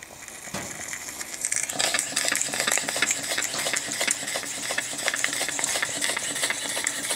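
Twin-cylinder, single-acting, rotary-valve model steam engine running fast after being switched to the other direction with its reversing valve, which it seems to like better. It makes a rapid, busy clatter of exhaust beats and clicks over a steady hiss, getting louder over the first couple of seconds.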